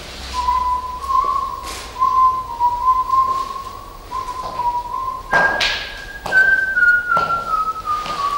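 A person whistling a slow, wavering tune that jumps higher about five seconds in and then steps back down note by note. Regular footsteps can be heard over the second half.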